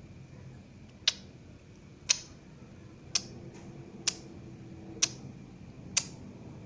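Lovebird giving single short, sharp chip calls, six of them evenly spaced about a second apart, between bursts of its long ngekek chatter.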